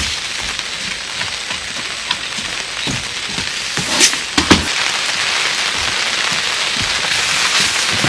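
Pouring rain hissing steadily on the tent and the surroundings, with a few knocks as gear is set down on the wooden deck, the two sharpest about halfway through.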